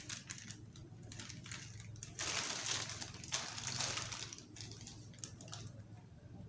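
Rustling and scraping of cardboard packaging being handled, with scattered clicks. It is loudest in two stretches around the middle.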